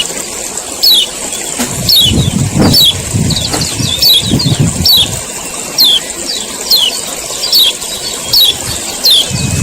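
Male kecial kuning white-eye giving its sharp 'ciak ciak' call: short, high notes that sweep downward, repeated about once or twice a second over a steady high hiss. A low rumble comes and goes under it a few times.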